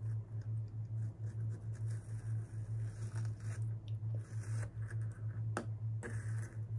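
A metal spoon scraping and digging through a bowl of crumbly cookies-and-cream dessert, with two sharp clinks against the bowl near the end, over a steady low hum.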